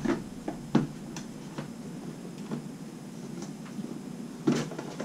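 Cardboard board-game box handled on a wooden table while its lid is worked off: light rustling with a few short knocks, the loudest about four and a half seconds in.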